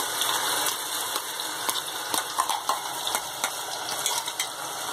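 Wet ground onion, tomato, ginger and garlic paste sizzling in hot mustard oil in a kadhai, a steady hiss with many small crackles and spatters as the water in the paste hits the oil.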